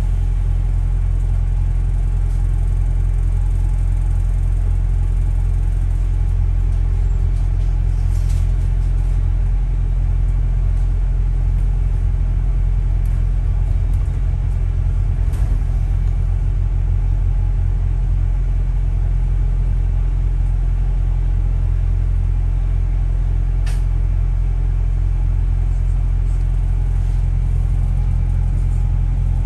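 Steady low rumble of a London double-decker bus, heard from inside the upper deck: engine and road drone, with a few sharp clicks or rattles.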